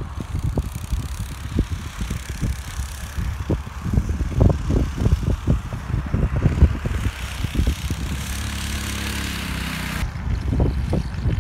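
Predator 212cc single-cylinder four-stroke engine of a homemade tracked snowbike running under load as it drives across snow, heard with irregular low thumps. Its steady engine note stands out clearly for a couple of seconds past the middle, then the sound changes abruptly.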